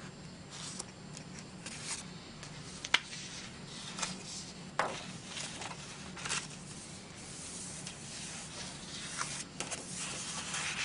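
Sheets of craft paper being handled, lifted and laid on top of one another: soft rustling and sliding of paper with a few sharp ticks, the loudest about three seconds in.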